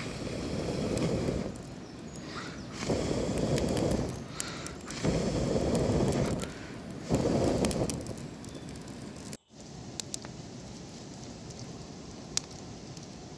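A person blowing hard into a smoky wood fire of wet twigs to get it going: four long breaths of about a second each, close to the microphone, within the first eight seconds. After about nine seconds, only a quieter steady hiss with a few faint ticks remains.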